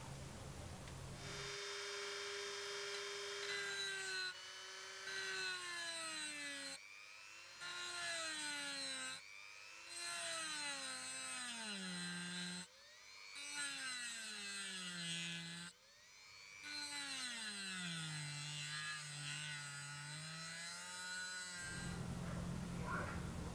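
Rotary tool with a thin abrasive cut-off disc cutting a slot into a small cast brass lure body. The motor's whine sags in pitch as the disc bites into the brass, over several stretches that stop abruptly, with a hiss of disc on metal. Rubbing and handling noise come before and after it.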